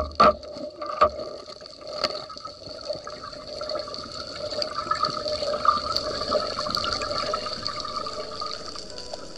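Water gurgling and sloshing with a steady hum underneath, and a few sharp knocks in the first two seconds.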